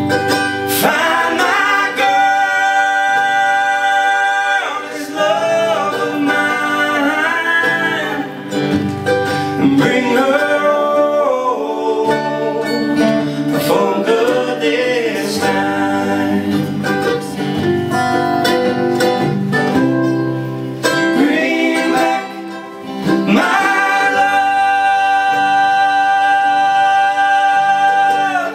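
Live acoustic band music: three male voices singing in close harmony over acoustic guitar, with long held chords about two seconds in and again near the end.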